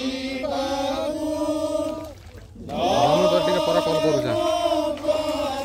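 Slow, chant-like hymn singing in long held notes, with a short break a little over two seconds in.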